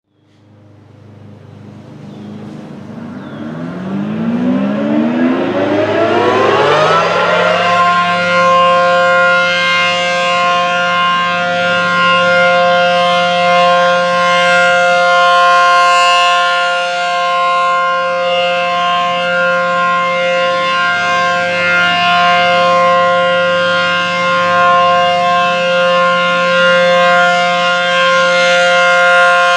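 ACA Allertor 125 rotating outdoor warning siren winding up, its pitch climbing for about seven seconds, then holding steady as a chord of several tones that swells and fades slightly in loudness. It is sounding for a routine monthly test, not an emergency.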